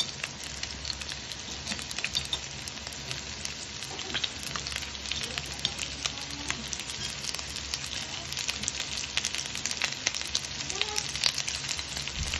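Chicken pieces and freshly added sliced onion sizzling in hot oil in a frying pan, with a steady crackle of small pops.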